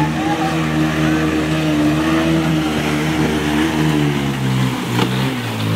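Motorcycle engine running at steady revs as the bike is pushed through a flooded river, over the hiss of rushing water. The engine note wavers and drops lower near the end.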